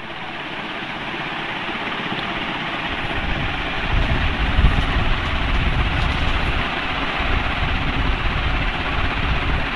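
Steady rushing background noise that swells up over the first few seconds, with a low, uneven rumble that grows stronger about four seconds in.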